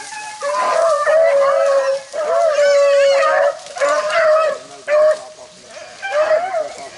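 Hunting beagles baying in a string of long, drawn-out howls, about five of them, some overlapping, with a brief lull a little past the middle. This is the cry of hounds working a rabbit's scent.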